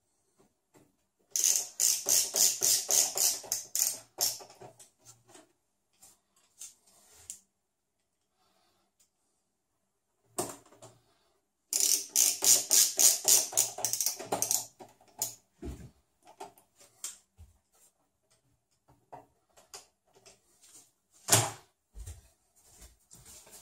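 A ratcheting screwdriver clicking in two quick runs of about three seconds each while screws are driven into the metal top cover of a Sony VAIO VGX-XL PC, with scattered softer clicks between them. A single knock comes near the end.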